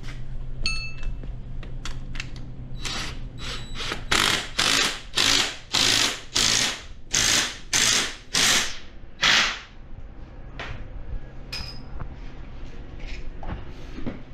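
Cordless impact driver tightening bolts on a snowmobile rear suspension skid, run in about ten short bursts roughly half a second apart.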